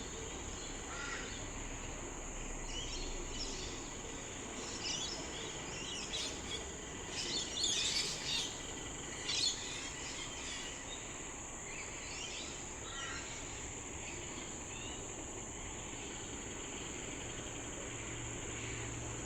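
Birds calling in short bursts, busiest a quarter to halfway through, over a steady high insect drone.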